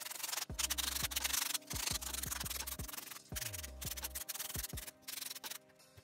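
Styrofoam being sanded by hand: fast, scratchy rubbing strokes in several runs with short pauses between them.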